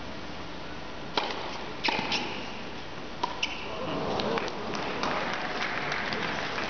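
Tennis ball struck by rackets in a short rally: a handful of sharp pops over about two seconds. From about four seconds in, arena crowd noise rises as the point ends.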